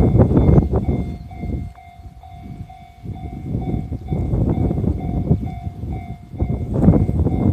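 Freight wagons behind an EF65 electric locomotive rolling over a level crossing: a heavy rumble with wheel clatter that swells and fades as the cars go by. Under it the level crossing's warning bell rings steadily.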